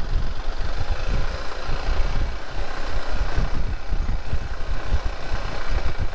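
A 150 cc motorcycle riding along a dirt trail, its engine running under way, with a heavy, uneven low rumble throughout.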